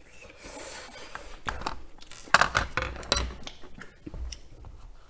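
Close-up eating sounds: cream-sauce noodles being slurped and chewed, with utensils clicking and scraping against a plastic takeaway tray. The loudest stretch comes from about two to three seconds in.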